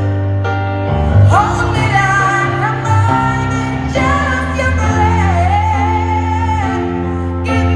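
Live amplified pop ballad: a female lead vocal singing a sustained, gliding melody over a band with steady bass and held chords, heard in a large arena.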